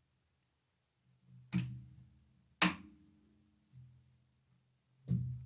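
Three sharp metallic clicks, the second the loudest, each with a short ring, as the AR-15 safety selector cylinder is pressed into the KP-15 polymer lower receiver past its spring-loaded detent, held down with a punch.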